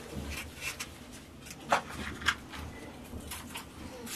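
Kitchen knife cutting a tomato held in the hand over a metal bowl: a string of short, irregular slicing clicks, with chopped pieces dropping into the bowl.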